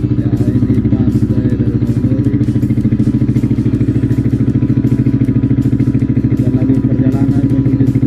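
Motor boat's engine running steadily under way, with a fast, even thumping beat.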